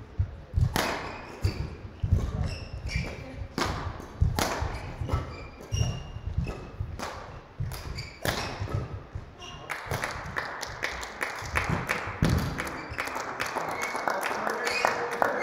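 Badminton rally: rackets strike the shuttlecock at irregular intervals, with players' footsteps thudding on the court floor and shoes briefly squeaking. From about ten seconds in, quick scattered clapping follows the end of the point.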